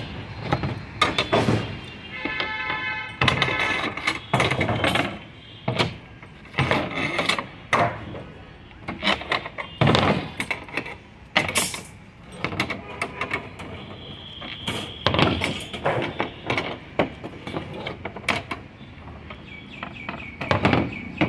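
Steel rebar and a hand bar-bending lever knocking and clanking against a steel-plate bending table and its pins as a stirrup's corner hooks are bent by hand. The knocks are irregular, some with a short metallic ring.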